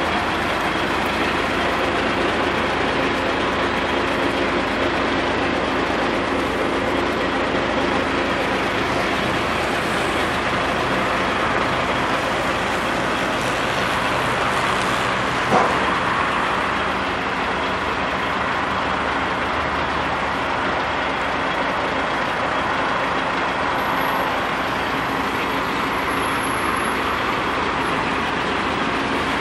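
GAZ-3309 garbage truck's diesel engine running at a steady idle, an even close hum, with one sharp click about halfway through.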